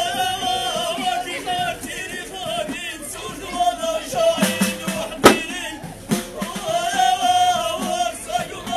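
Ahidous: a group of men singing a wavering chant together, with bendir frame drums. One sharp, loud beat a little past the halfway mark stands out.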